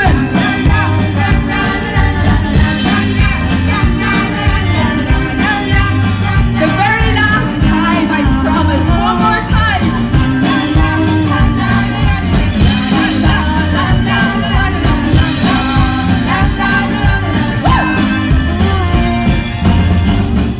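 Live rock band playing a song: singing over electric guitar, acoustic guitar and a drum kit with a steady beat.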